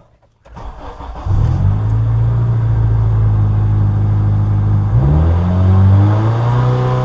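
2003 Honda Element's 2.4-litre four-cylinder engine comes in about a second in and runs steadily. About five seconds in it is revved up and held high. This is the rev test for a P2646 VTEC rocker-arm oil-pressure fault, made right after the clogged oil screen was cleaned, to see whether the engine will now pull past 3,000 rpm.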